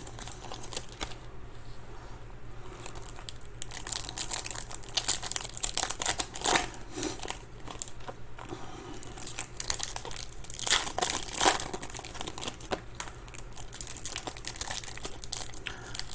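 Foil wrappers of Topps Chrome baseball card packs being torn open and crumpled, in irregular crinkling bursts.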